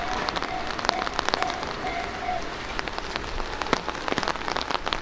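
Rain falling, with many sharp drop hits close to the microphone. A level crossing's warning bell rings in a quick, steady repeating tone, about two to three beats a second, and stops about two and a half seconds in.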